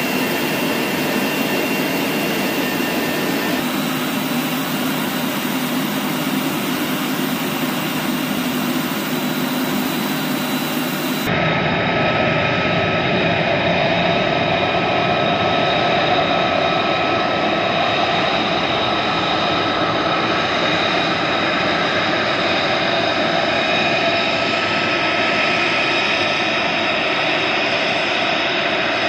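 F-35 fighter jet's F135 turbofan engine running, a steady loud rush with high whining tones. About eleven seconds in the sound cuts abruptly to a slightly louder jet noise with different steady whining tones.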